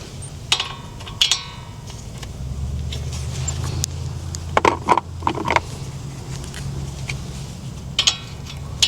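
A handful of sharp metallic clinks and taps, some ringing briefly, like hand tools knocking on metal during a wheel hub job. Underneath runs a steady low bass from background music.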